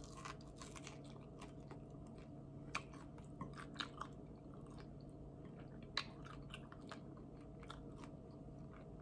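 A person chewing a mouthful of barbecue chicken wing, quietly, with scattered small clicks and crunches, the sharpest a little before three, near four and at six seconds in.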